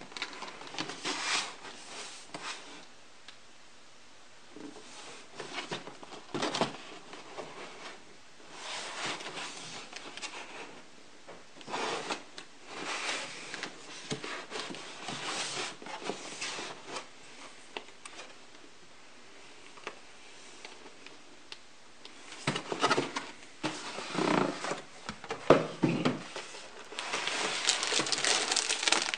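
Cardboard model-kit box being handled: irregular scraping and sliding of cardboard against hands and the cutting mat as it is turned over and opened, with a busier stretch of handling about three quarters through. Near the end the plastic bags holding the kit's parts runners begin to crinkle.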